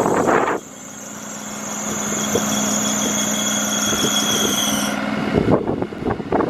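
Cummins ISB 6.7 diesel of a 2014 Freightliner school bus being started in freezing weather: a steady high-pitched whine over a low hum, growing louder, that stops about five seconds in.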